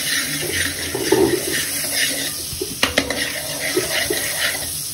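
Butter melting and sizzling in a hot kadhai while a steel ladle stirs it around the pan, with a couple of sharp clicks of the ladle against the pan about three seconds in.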